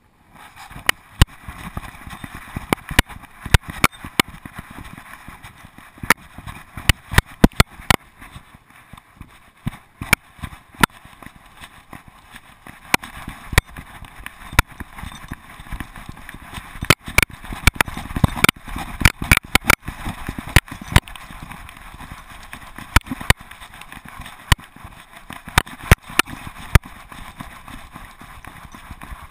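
A GoPro HD Hero2 in its case, strapped to a moving dog, knocking and clicking irregularly as the dog's steps jolt it, over a steady hiss.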